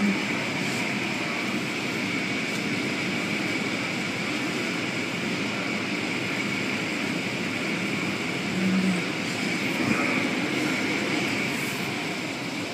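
Automatic car wash machinery running, with cloth wash strips sweeping over the car and water spraying: a steady rushing noise with a faint high whine.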